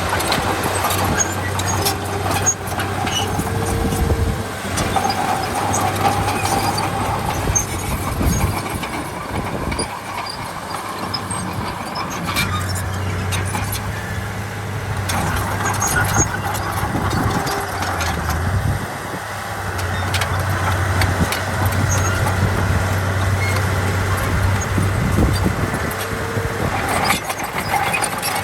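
Heavy diesel earthmoving machinery working, its engine running steadily and rising and falling in load, with metal clanks and brief squeals.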